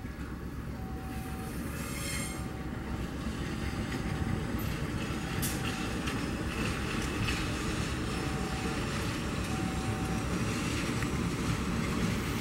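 A train passing close by: a steady rumble of wheels on the rails that grows slightly louder, with a short tone repeating every second or two.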